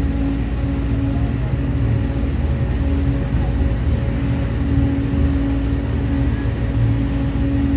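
A river sightseeing boat's engine running steadily under way: a constant hum over a low rumble, with the wash of water along the hull.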